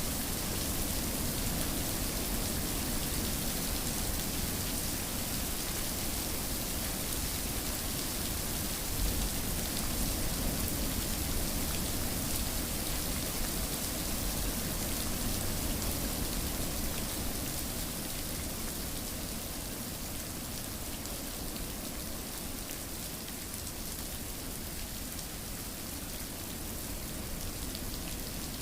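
Steady rain falling, a continuous even hiss of drops; a low rumble under it eases off about two-thirds of the way through.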